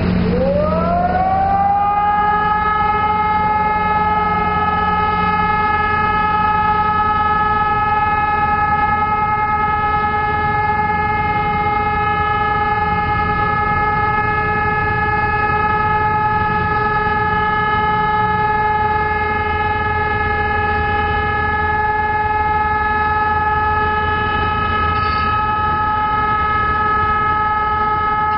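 Civil defence siren sounding the all-clear (Entwarnung) signal, one long unbroken tone. Its pitch rises over the first couple of seconds, then holds steady with no wail.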